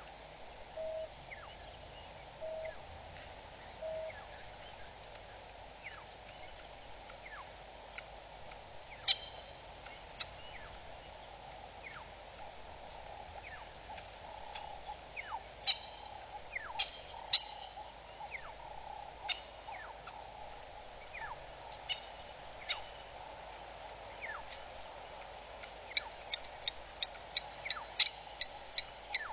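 Wild birds calling over a steady background hiss: short downward-sweeping chirps scattered throughout, three short low hoots in the first few seconds, and a fast run of sharp, evenly repeated notes starting near the end.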